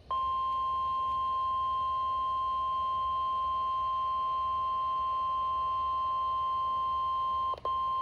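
NOAA Weather Radio 1050 Hz warning alarm tone, a loud, steady single-pitched tone played through a Midland weather alert radio's speaker, sent as the weekly test of the alarm that switches on tone-alert receivers. About seven and a half seconds in it cuts out for a moment, then resumes.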